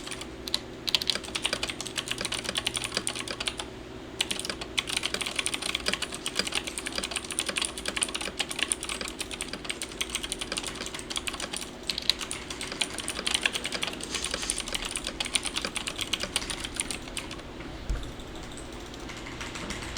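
Fast typing on a 1stPlayer Lang MK8 mechanical keyboard with clicky Gateron Blue and Outemu Green switches: a dense stream of sharp key clicks with a few brief pauses, thinning out near the end.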